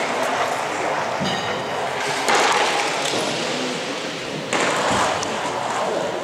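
A stock with a pink base slides over the hall floor toward the target, heard as a steady gliding noise in a large echoing hall with background voices. The sound changes abruptly twice, about two and a half seconds in and again about four and a half seconds in.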